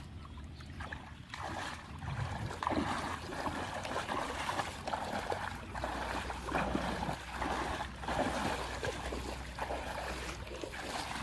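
Canal water sloshing and splashing irregularly as it is stirred up.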